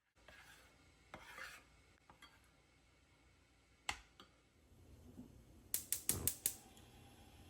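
Kitchen utensils being handled against dishes: a faint scraping in the first second or so, a single click near the middle, then a quick run of about five sharp clinks.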